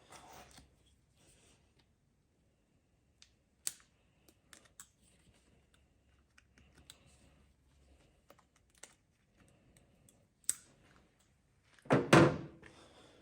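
Scattered small clicks and taps of hands handling spark plug wire parts and a packet of dielectric gel, with a louder crinkling burst about twelve seconds in.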